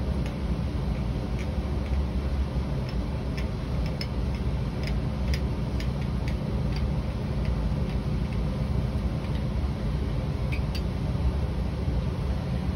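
Steady low hum of lab ventilation, with faint scattered clicks and taps of glassware being handled.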